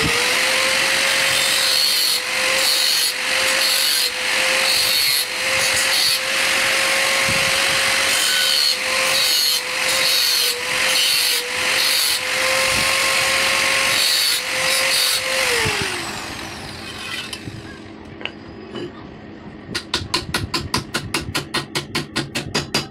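Electric angle grinder running at a steady whine and cutting into a steel rod in repeated passes, then switched off and spinning down with a falling pitch at about 15 seconds. Near the end, quick hammer blows ring on the rod against a steel block.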